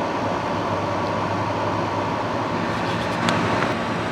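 Frigidaire FAD504DWD 50-pint dehumidifier running, a steady hum of its fan and compressor, with one short click about three seconds in.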